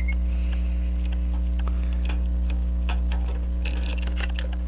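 Steady mains hum picked up by an ungrounded microphone that has been set down rather than held. Over it, scattered irregular small clicks and taps of hands working on the clock movement with a plastic bottle cap used as a parts container, with a quick cluster of clicks near the end.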